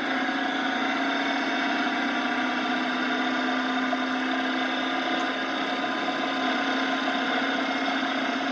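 Drivetrain whine coming through the driveshaft tunnel of a 2014 Dodge Charger Pursuit, heard inside the car while driving: a steady whine over road noise. The owner suspects the rear axle, the transmission or the driveshaft hanger bearing.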